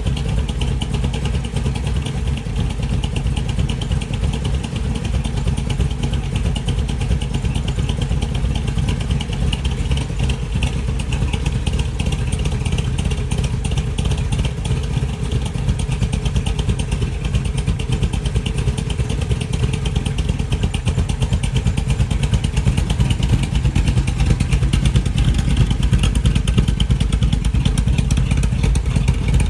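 Lowered 1964 Chevrolet C10's 358 small-block V8 idling steadily through its exhaust, a fast, even pulsing, a little louder near the end.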